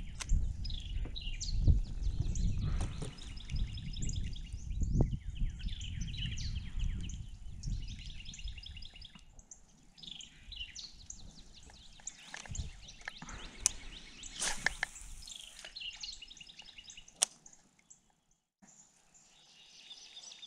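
Songbirds singing repeated chirping phrases, with wind rumbling on the microphone over the first half and a few knocks.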